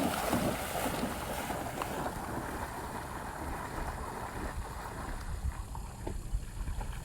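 Water splashing as a young dog swims, with wind rumbling on the microphone throughout. The splashing is busiest in the first two seconds and thins out after.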